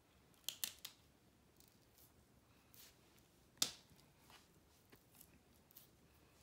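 Fresh pumpkin vine stems being snapped and peeled of their stringy skin by hand: a few quick snaps about half a second in and a sharper, louder snap about three and a half seconds in, with faint small ticks between.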